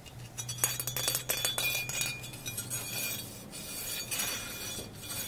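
Crisp clinking and tapping of small hard objects handled close to the microphone, with short ringing high notes, the clinks coming thickest in the first two seconds.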